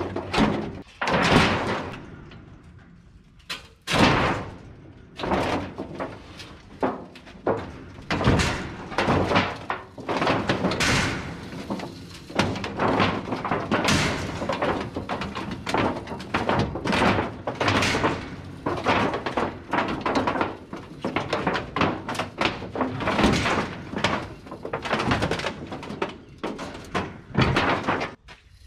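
Scrap steel roofing sheets being handled and thrown: repeated metal bangs, clangs and rattles, several a second, with a short lull about two to four seconds in.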